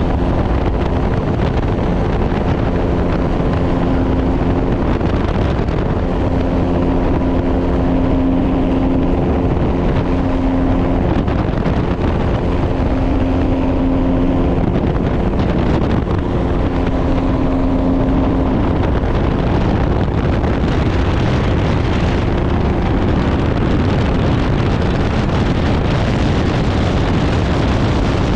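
Open-cockpit flex-wing microlight trike in flight: its engine drones steadily under heavy wind noise on the microphone.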